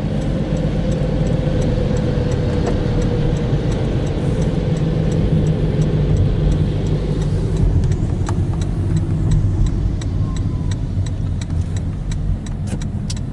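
Car driving, heard from inside the cabin: a steady low road and engine rumble with a faint tone that slowly falls in pitch as the car slows. About halfway through, a turn signal starts clicking, about two ticks a second.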